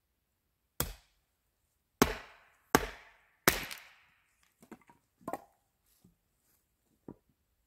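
Tool blows on wood: one strike, then three loud strikes about three-quarters of a second apart, followed by several lighter knocks.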